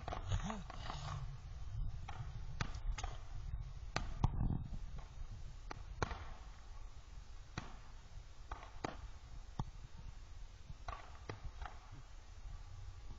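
Fireworks going off at a distance: a series of sharp pops and bangs at irregular intervals, more frequent in the first few seconds, over a low steady rumble.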